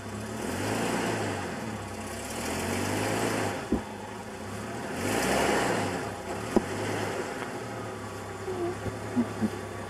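Jeep Cherokee engine running and revving up and easing off about three times as the SUV is driven onto a plastic whitewater boat. There are two sharp knocks, one near the middle and one about two-thirds of the way through.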